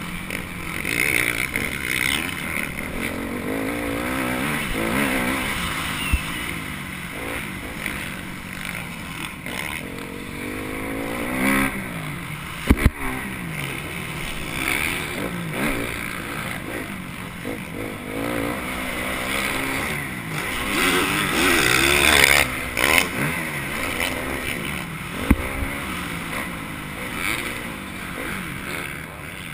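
Dirt bike engine being ridden hard, revving up and falling back over and over as the rider works the throttle and gears, with a rushing noise of wind on the microphone. A few sharp knocks cut through, the loudest about 13 seconds in.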